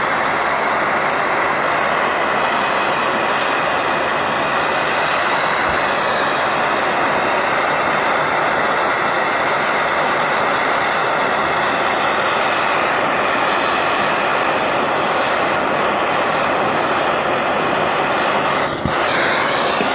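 Hand-held gas blowtorch on a screw-on cartridge burning at full flame close to the microphone: a loud, steady hiss of the torch flame, dipping briefly just before the end.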